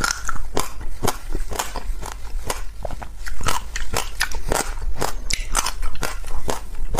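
Crunchy ice being bitten and chewed close to the microphone: a rapid, irregular run of sharp crunches and cracks, several a second.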